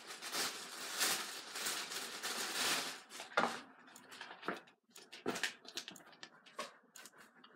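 Plastic wrapping rustling and crinkling for about three seconds, then scattered light clicks and rustles as a snapback cap is handled.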